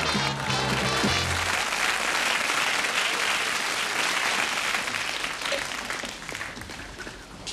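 Audience applause with a short burst of music at the end of a comedy sketch. The music stops about a second and a half in, and the clapping dies away over the last couple of seconds.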